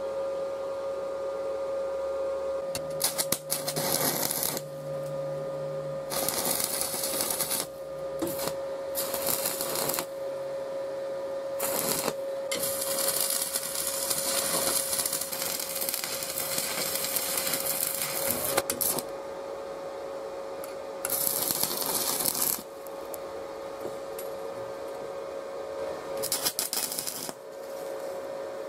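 Stick (arc) welding on a steel frame: the arc crackles and sizzles in repeated bursts as tack welds are laid. Most bursts last a second or two, and one longer run in the middle lasts about six seconds.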